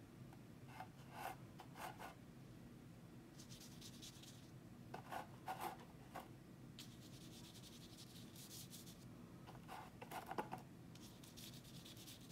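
Paintbrush bristles scrubbing thick paint across paper, heard as three short stretches of faint, high scratchy rubbing. Between the strokes come small clusters of light taps.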